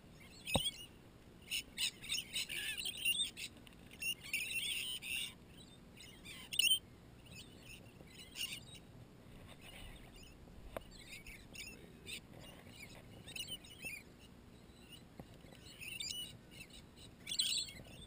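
A flock of rainbow lorikeets feeding at close range, giving bursts of short, high-pitched calls. The calls are busiest in the first few seconds and pick up again near the end.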